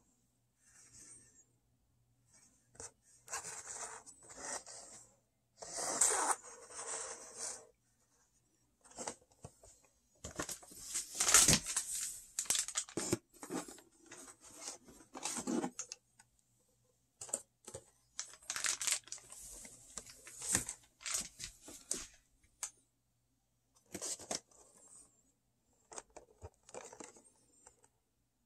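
Cardboard Funko Pop boxes with plastic windows and their cardboard shipping carton being handled, giving irregular bursts of rustling and scraping with short pauses between.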